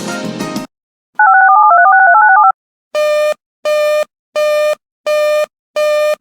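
Emergency alert broadcast signalling tones. A short burst of noise comes first. About a second in, a quick string of stepping two-note electronic tones follows, like telephone touch-tone dialing. From about three seconds in come five evenly spaced beeps on one steady buzzy pitch.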